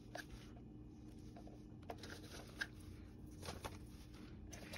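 Faint rustles and a few light taps of hands handling a small cardboard craft piece and a thin wire, over a faint steady hum.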